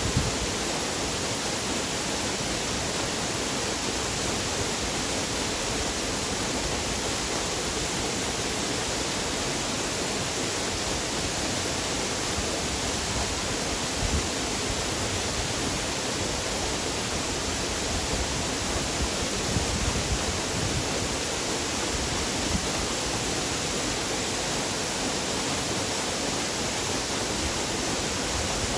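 Waterfall: falling water making a steady, even rushing sound.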